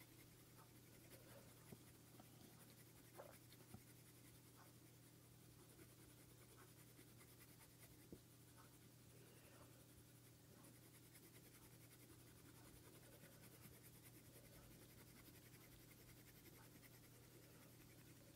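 Very faint scratching of a Faber-Castell Polychromos coloured pencil being stroked lightly over hot-press paper, with a few small ticks, over a low steady room hum.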